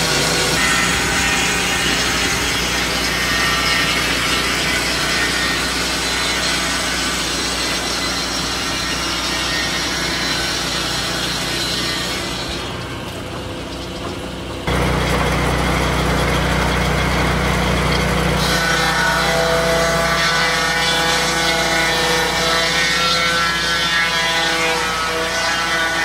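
Lucas Mill portable swing-blade sawmill running, its engine-driven circular blade cutting along a log. The sound dips for a couple of seconds around the middle, then returns loud with a steadier engine tone.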